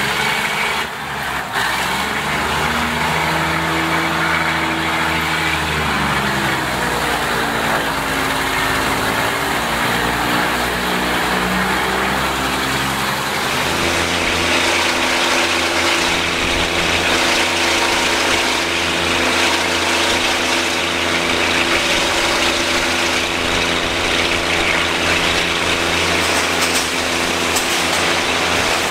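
Diesel railcar engine running under way, with wheel and rail noise, heard from inside a non-air-conditioned car with open windows. The engine note rises and falls for several seconds, then from about halfway settles into a steady, louder drone.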